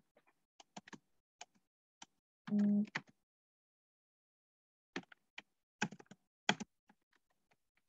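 Computer keyboard being typed on: scattered single key clicks in two short runs, the second about five seconds in. About two and a half seconds in comes a brief steady hum, the loudest sound.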